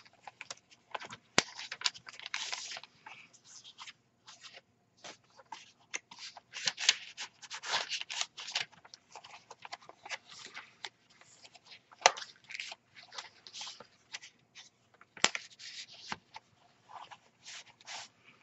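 Paper rustling and crinkling as hands turn the pages of a handmade junk journal and handle its paper tags and inserts, in an irregular run of short rustles. A few sharper snaps come about a second and a half in, again around twelve seconds, and at fifteen seconds.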